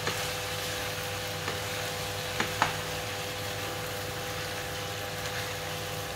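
Rice noodles sizzling in a frying pan as they are stirred and tossed with a spatula, with a steady hiss and two sharp clicks of the utensils against the pan about two and a half seconds in, over a steady low hum.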